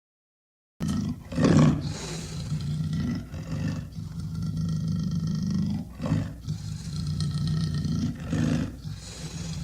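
Pyroraptor dinosaur sound effect mixed from hyena, crocodile, leopard and velociraptor recordings: a long, low animal call that starts suddenly about a second in and swells louder three times, near the start, in the middle and near the end.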